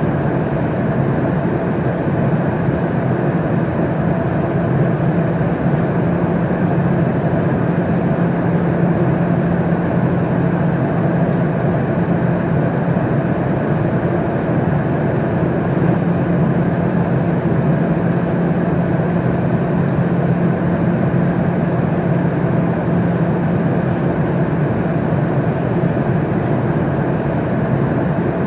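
Airliner cabin noise in flight: a steady, unbroken rushing drone with a low hum underneath, from engine and airflow noise heard inside the cabin.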